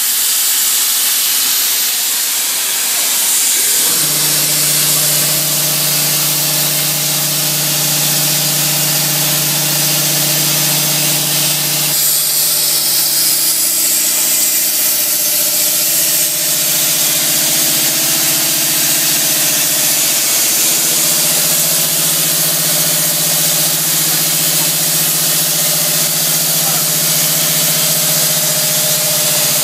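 Plasma cutting torch on a CNC pipe cutting machine, hissing steadily as it cuts through a large-diameter steel pipe. A steady low machine hum joins in about four seconds in.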